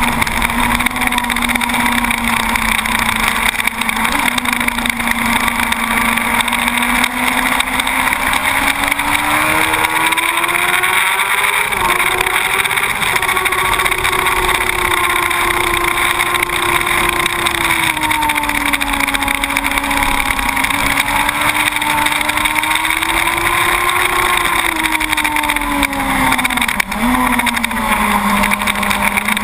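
2006 Yamaha YZF-R1 SP's inline-four engine running hard on a track lap, heard from an onboard camera with steady wind rush. The engine note climbs about a third of the way in, rises and falls gently after that, and dips sharply near the end before settling lower.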